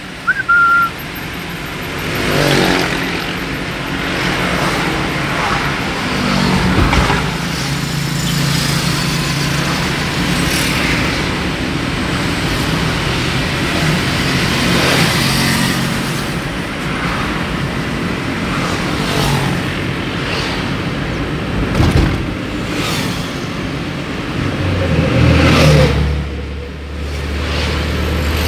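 Car cabin noise while driving: a steady rumble of road and engine with a low hum that shifts in pitch, and a few sharp knocks.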